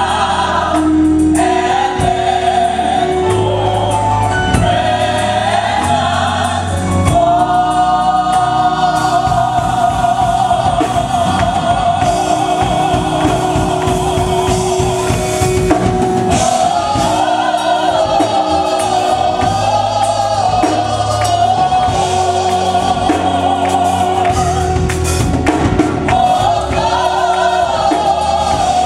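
Gospel music: a choir singing over a band with drums and bass.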